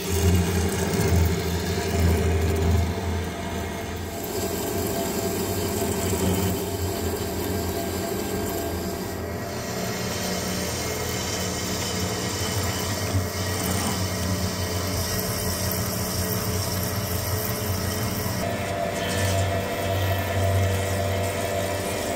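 Hafco centre lathe turning a thick steel cylinder barrel while a button insert cuts into the weld at the barrel end: steady cutting noise over a low motor hum, a little louder in the first few seconds.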